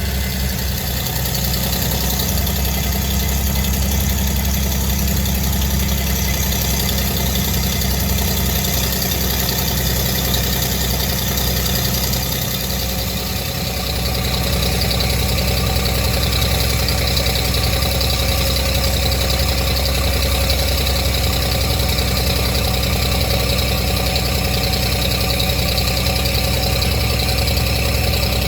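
An engine running steadily, with a brief dip in level about halfway through.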